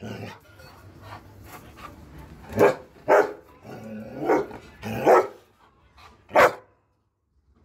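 Doberman pinscher barking: about five loud, irregularly spaced barks starting a couple of seconds in, between softer sounds.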